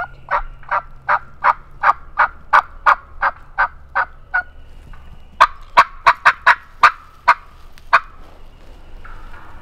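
Wild turkey yelping: a long, evenly paced series of about a dozen yelps. After a short pause comes a louder, faster, uneven run of sharp cutting notes.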